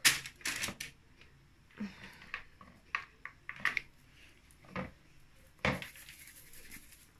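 A mixing bowl being handled while dough is pulled out of it by hand: a string of short, irregular knocks and scrapes of the bowl against hands and table, the loudest right at the start.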